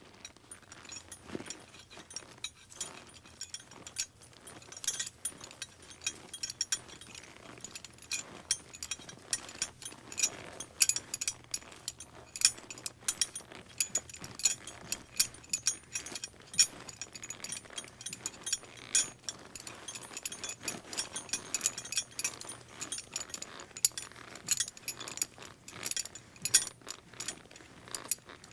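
A dense, irregular run of metallic clinks and rattles, like jangling metal, going on throughout.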